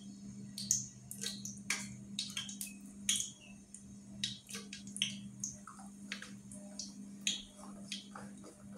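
Whole spices (cardamom, cloves and cinnamon) crackling in hot oil in an aluminium pot, with scattered, irregular sharp pops. A steady low hum runs underneath.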